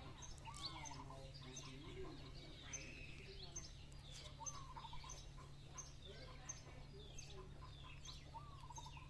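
Faint outdoor birdsong: one bird repeats a call about every four seconds, a falling note that breaks into a quick trill, while other small birds give short high chirps.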